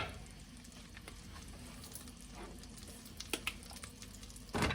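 Butter melting in a hot pan with a faint, steady sizzle, a few light utensil clicks, and a short clatter near the end.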